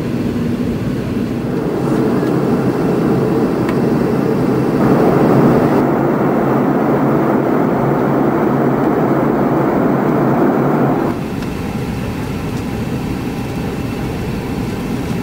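Steady rushing cabin noise of an airliner in flight, heard from inside the passenger cabin. It steps up abruptly about two seconds in, grows fuller around the middle, and drops back sharply about eleven seconds in.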